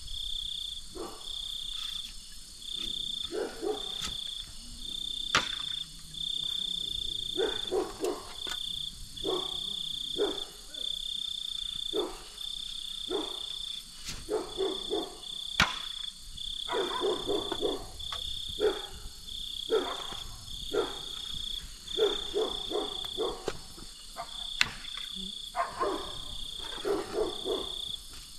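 Night insects chirping in a steady high pulse, about one chirp a second. Beneath them, frogs croak in short rattling runs every few seconds, and there are a few sharp clicks.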